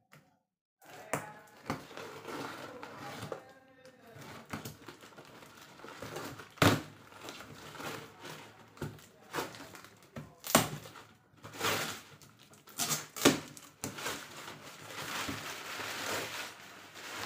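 Cardboard box being opened with a box cutter: the blade slitting packing tape and the tape and cardboard flaps rustling, with several sharp clicks along the way and a longer rustle near the end.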